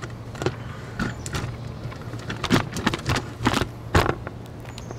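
Handling noise: about eight sharp knocks and clicks scattered over five seconds, over a steady low hum.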